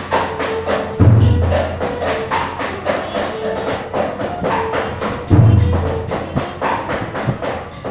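Traditional Vietnamese temple ritual music: rapid, even wooden clapper or wood-block strikes, about four to five a second, with two deep booms about a second in and about five seconds in, and a held tone that comes and goes.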